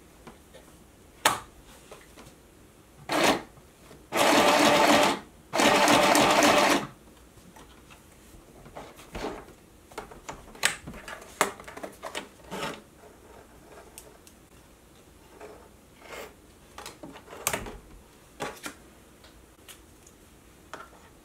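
We R Memory Keepers Stitch Happy sewing machine running twice at its second speed setting, about a second each time, about four and six seconds in. A short blip comes before the runs, and light clicks and rustles follow as the work is handled under the needle.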